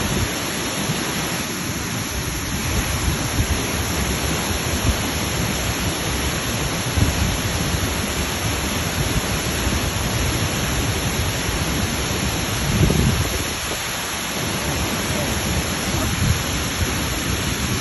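Waterfall: a steady rush of falling water with a deep rumble that swells unevenly, most strongly about thirteen seconds in.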